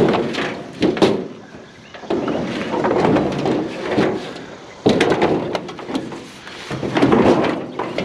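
Scrap metal grill parts knocking and scraping as they are lifted and pushed onto a trailer's load: several sharp knocks, the loudest about a second in and near five seconds, with stretches of rough scraping between them.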